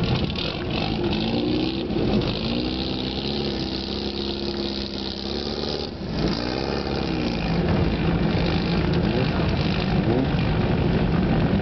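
Engine of a low-slung custom VW Beetle-based hot rod driving off, its revs rising and falling several times, then holding fairly steady near the end.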